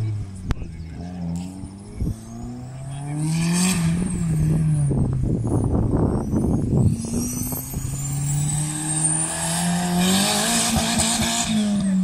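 A car engine driven hard on a gymkhana course, its note climbing and dropping again and again as the car accelerates and slows between the cones, with a rough, noisy stretch in the middle.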